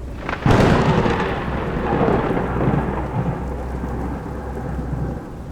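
Thunder from a close lightning strike, heard through a doorbell camera's microphone: a sudden sharp crack about half a second in, then rumbling that fades over several seconds, over steady rain.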